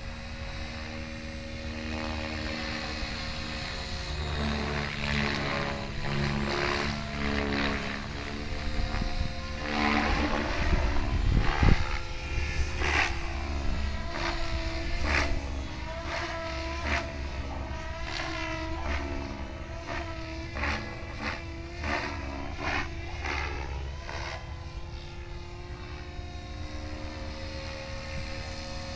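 Gaui X7 radio-controlled helicopter flying overhead. Its rotor and motor whine rises and falls in pitch over and over as it is thrown through tic-toc manoeuvres.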